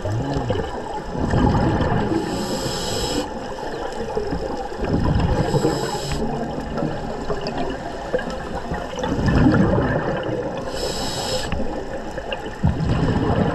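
A scuba diver breathing underwater through a regulator: a hiss on each inhalation and a rumbling gush of exhaled bubbles, repeating every four or five seconds.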